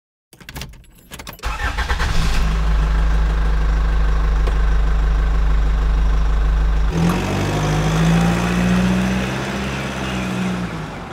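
Car engine starting after a few clicks, then idling steadily. About seven seconds in, the engine note rises, then fades away toward the end.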